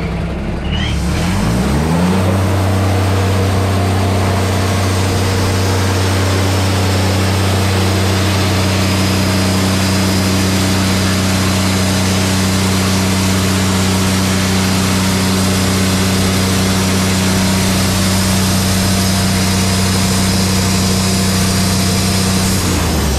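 Wood-Mizer LT35 hydraulic sawmill: its engine revs up about two seconds in, runs at a steady high speed with a steady hiss as the band blade saws through eastern red cedar, then drops back toward idle near the end.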